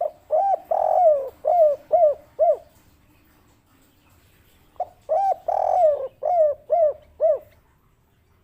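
Spotted dove (tekukur) cooing its 'kuk 3' song twice: each phrase opens with two short coos and a longer drawn-out coo, then ends in three short clipped 'kuk' notes.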